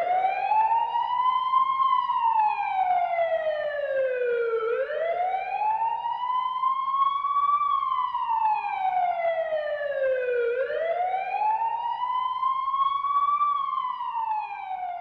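Ambulance siren wailing: a slow rise and fall in pitch that repeats about every six seconds, fading near the end.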